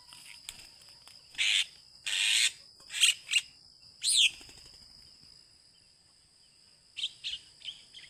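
Several short, harsh squawks from a Javan myna being released by hand, one at about four seconds falling in pitch, with a few quick calls near the end, over a steady high-pitched insect trill.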